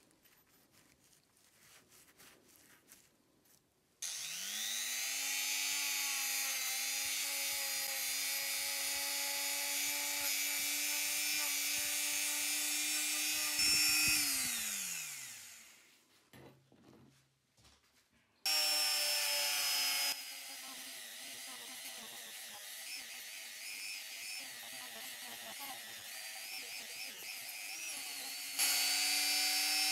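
A small high-speed rotary tool with a sanding drum spins up, runs steadily for about ten seconds and winds down with a falling whine. It starts again, runs at a lower, uneven level for several seconds, likely as the drum works a small steel part, then runs louder near the end.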